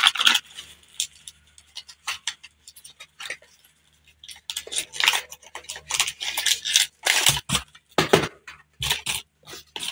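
Handling noise: clicks, taps and light rustling as a small plastic motion-sensor light and its packaging are picked up and worked by hand, over a faint steady low hum.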